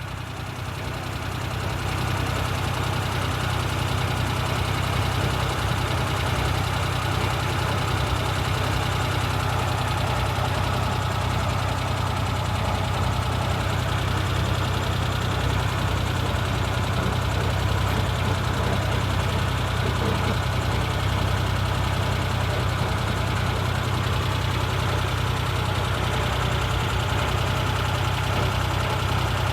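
Suzuki Jimny JA71's small three-cylinder engine running steadily at idle, a low even drone, in a vehicle being checked for an abnormal noise. It fades up over the first couple of seconds.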